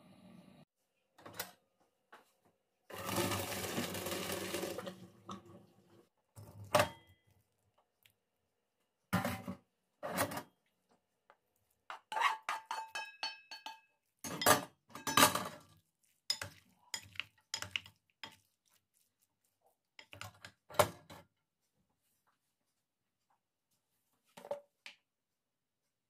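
Kitchen utensils knocking and clinking against a steel pot and a ceramic serving bowl in short separate bursts, a few of the clinks ringing briefly. About three seconds in there is a couple of seconds of steady rushing noise.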